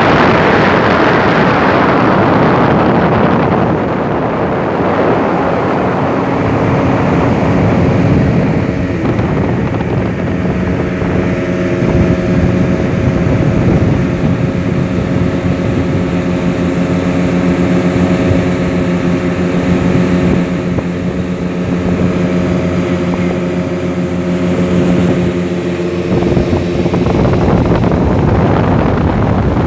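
A boat's motor running at a steady pitch while under way, with wind rushing over the microphone. The wind noise is heaviest in the first few seconds and again near the end.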